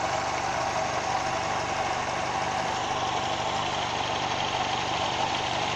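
Daihatsu Zebra four-cylinder petrol engine idling steadily.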